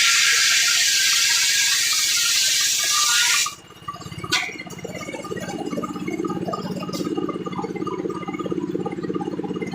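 A circular saw cutting through wood: a loud, hissing cutting noise that stops abruptly about three and a half seconds in as the cut ends. A sharp click follows, then the machine runs on with a lower, steady rattling hum.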